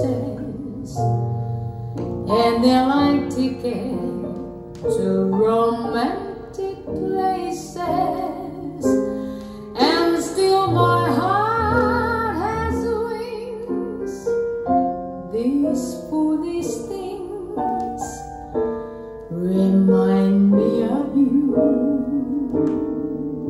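Recorded music from a vinyl record on a Zorin TP-S0 turntable, heard through a pair of bookshelf speakers in the room: a woman singing with vibrato over piano accompaniment.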